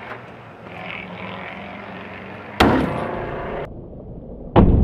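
A door slammed shut about halfway through, with a short rattle and ringing from the lock box hung on its hinge-side mount, then another loud bang near the end.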